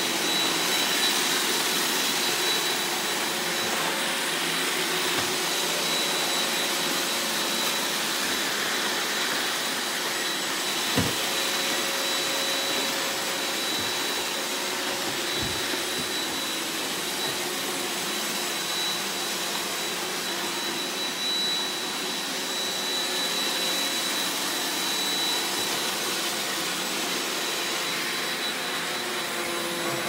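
Robot vacuum cleaner running: a steady rush of suction noise with a thin high whine, and two light knocks about a third of the way and halfway through.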